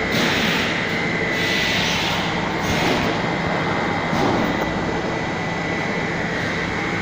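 Fabric welding machine for roller-blind material running: a steady hum with a continuous high whine, and three short hisses in the first three seconds.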